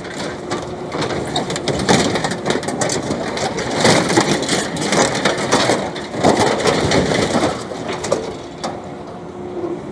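Excavator crushing and tearing apart scrap farm machinery: a dense run of metal crunching, creaking and snapping over the excavator's running engine, heaviest in the middle and easing off near the end.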